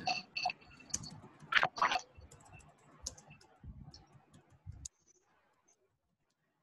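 Typing on a laptop keyboard: a run of irregular key clicks as a line of text is typed, stopping about five seconds in.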